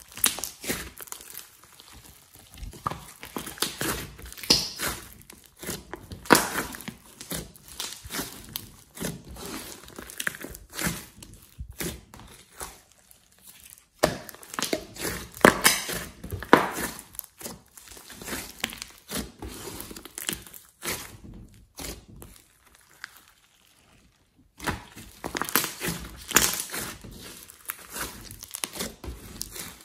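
Hands kneading, folding and squeezing a large lump of slime mixed with clay, giving irregular squishing, crackling and popping sounds with a couple of short quiet pauses.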